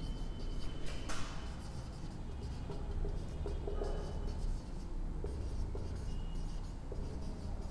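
Marker pen writing on a whiteboard: the tip scratches and squeaks faintly in short, uneven strokes as words are written out.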